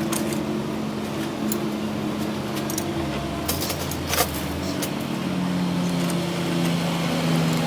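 A machine running steadily with a low, even hum, with scattered light metallic clicks and taps over it.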